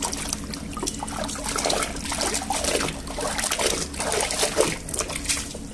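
Thick muddy water sloshing and splashing as a hand swirls through it in a tub, then trickling and pouring off a plastic toy truck as it is lifted out of the water.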